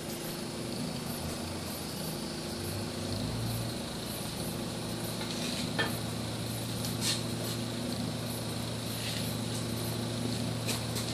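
CNC plasma torch cutting steel flat bar: a steady hiss over an even electrical hum, with a few faint crackles. The torch is running low over the plate after its Z height dropped by about 2 mm.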